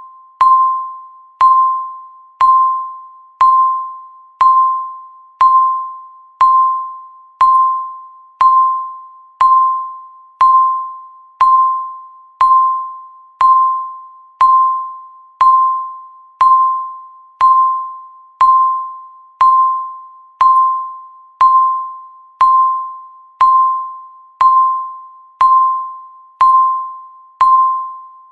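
Countdown timer beep: a single tone with a sharp start, struck once every second and fading away before the next, like a chime.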